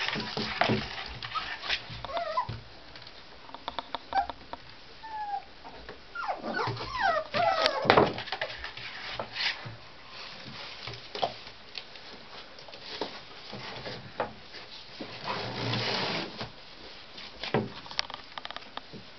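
Tibetan terrier puppies whimpering and yipping in short high squeals, a flurry of them about six to eight seconds in, amid clicks and scuffles of their claws on a tiled floor.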